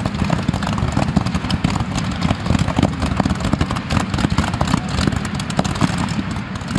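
Modified-class pulling tractor's engines running loud and steady, with a dense crackle from the exhaust.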